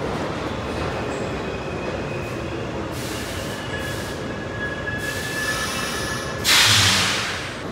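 New York City subway car running along the track, a steady rumble with thin high-pitched wheel squeals through the middle. About six and a half seconds in, a sudden loud hiss, the loudest sound, fades out over about a second.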